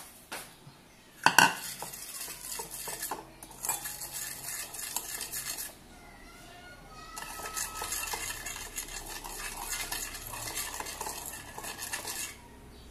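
Metal spoon stirring and beating instant coffee and sugar in a bowl, scraping and clinking against its sides. A sharp clink comes about a second in, and the stirring pauses briefly about halfway through before carrying on steadily.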